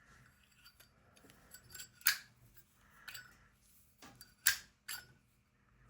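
Zippo lighter being handled, its metal lid worked open and shut: faint metallic ticks and two sharp clicks about two and a half seconds apart. The lid lacks its usual crisp snap on a well-used lighter.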